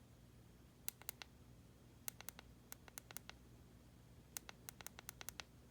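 Faint, sharp clicks of the small push button on a Kind Pen variable-voltage vape battery, pressed in quick runs that grow longer toward the end. It is the five-click sequence that switches the battery on.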